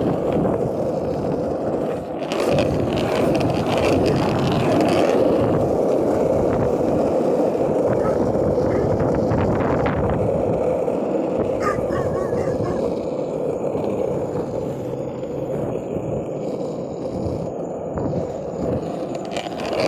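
Longboard wheels rolling steadily over street pavement, a continuous grinding rumble.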